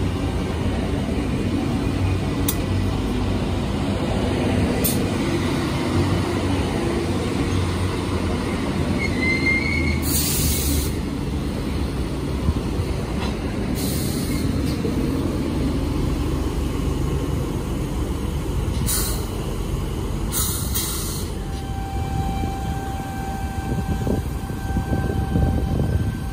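Sydney Trains C set, a chopper-control double-deck electric train, moving past along the platform: a steady rumble of wheels on the track, with several short hisses and a brief rising squeal about nine seconds in. Near the end a steady whine sets in.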